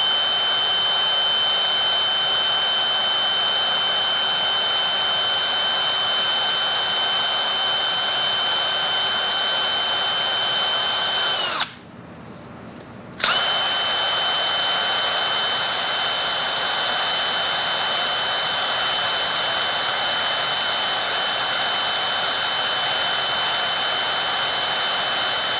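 Electric drill running steadily with a high whine as a small bit drills slowly into the steel case of a two-stroke motorcycle engine's crankshaft oil seal. It stops for about a second and a half near the middle, then starts again. The bit cuts slowly, which the owner puts down to a dull drill bit.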